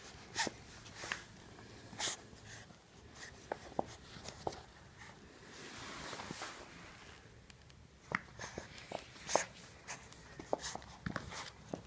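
A two-month-old French Bulldog puppy scuffling about on carpet at close range, with scattered light taps and clicks. About six seconds in, its fur and a sleeve rub against the camera with a soft rustle.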